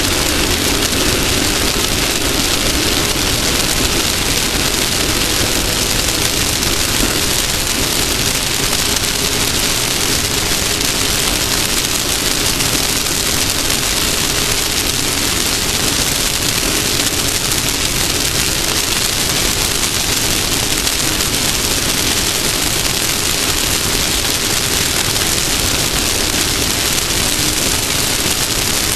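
Off-road race car's engine running at a steady pitch under a loud, even hiss of wind and tyre-on-dirt noise.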